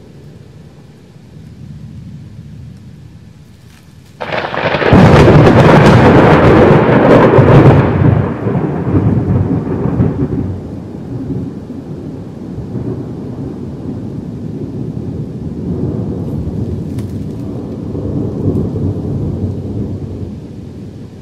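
Thunder: a low distant rumble, then about four seconds in a sudden close thunderclap that cracks loudly for several seconds and rolls on into a long rumble that slowly fades.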